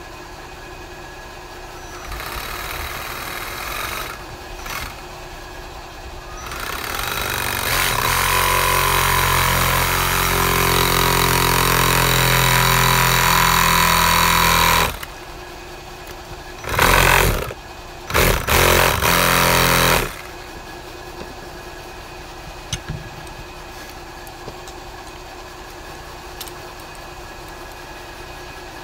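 Reciprocating saw cutting into the plastic body of a small lawn mower fuel pump. It runs in a short burst about two seconds in, then in one long steady cut of about eight seconds, then two brief bursts.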